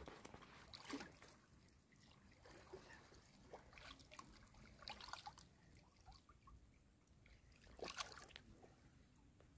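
Faint sloshing of muddy pond water with a few small splashes, from a person wading chest-deep and moving their hands through the water.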